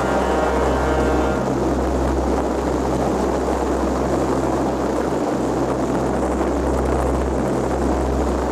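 Boat motor running steadily under way, a low hum with a broad hiss of water and wind over it.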